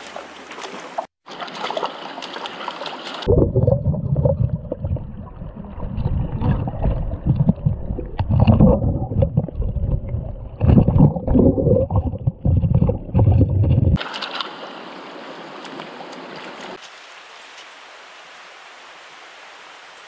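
Shallow stream rushing over rocks. For about ten seconds in the middle it is heard from under the water, muffled, low and surging with irregular gurgling knocks, then the open-air rush of the current returns, dropping to a fainter steady wash near the end.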